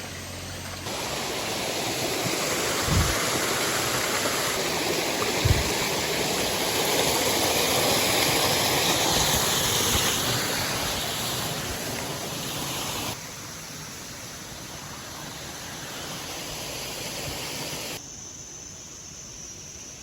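Rushing water of a waterfall, a steady noise that steps up and down in level at a few cuts, with a couple of brief low thumps near the start.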